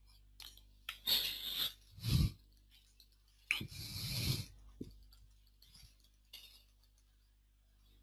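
Faint computer keyboard typing, a few short bursts of keystrokes with scattered single clicks as a URL is entered.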